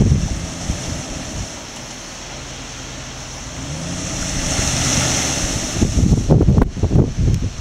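Dodge pickup's engine running as the truck reverses through mud. Its note and the hiss swell about four to five seconds in, followed near the end by heavy low buffeting of wind on the microphone.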